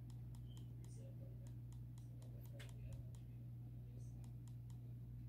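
Faint, irregular clicks of the buttons and control wheel on a Sony RX100 VII compact camera being pressed and turned, over a steady low hum.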